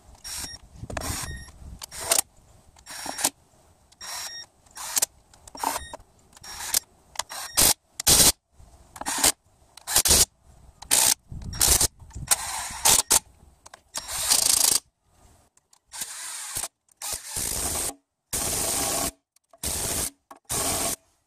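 Cordless impact driver running in the oil pan bolts: many short trigger bursts, then longer runs of about a second each in the second half as the bolts are driven home.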